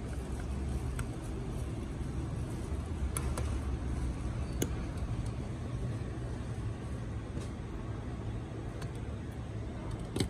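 A steady low background rumble, a little stronger in the first half, with a few faint clicks from the partly disassembled printer's metal and plastic parts being handled, and a sharper click near the end.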